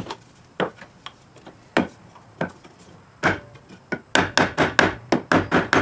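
Wooden knocks as an epoxied wooden handle is driven into a mallet head made from a baseball-bat barrel, its end struck with a block of wood. The knocks come a second or so apart at first, then in a quick run of about four or five a second near the end.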